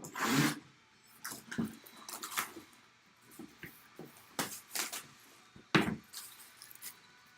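Handling and opening a boxed collectible: a string of irregular rustles, scrapes and light knocks of cardboard and packaging, loudest just after the start and again around the middle and about six seconds in.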